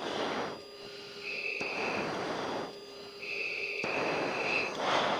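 F-16 cockpit heard over the intercom: rushing hiss in about four bursts, each roughly a second long, alternating with a steady high electronic tone that sounds in the gaps between them.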